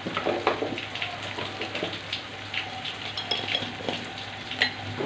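Sliced onions and garlic frying in hot oil in a pan, a steady sizzle with scattered small crackles and pops.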